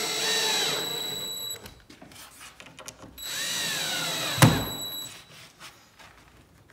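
Cordless drill/driver driving small screws through a router template into plywood, running twice, its motor pitch dropping as each screw pulls down, with a sharp snap near the end of the second run as the screw seats.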